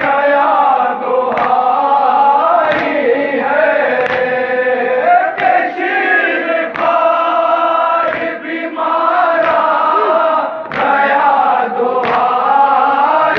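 Group of men chanting a nauha, a Shia mourning lament, with a lead voice and the chorus singing together. A sharp slap from the mourners beating their chests in unison (matam) comes steadily about every second and a third.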